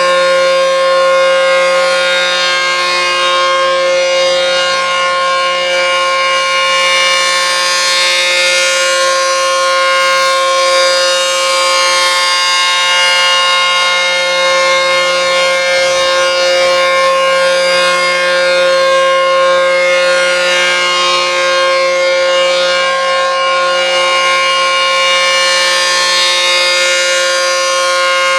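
ACA P-15 electromechanical outdoor warning siren sounding its steady alert signal. It holds one unwavering pitch with no rise or fall, and stays loud throughout.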